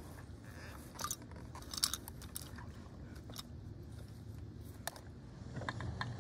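A hand rustling through grass and handling small plastic toy pieces, making scattered light crunches and clicks, the loudest about two seconds in.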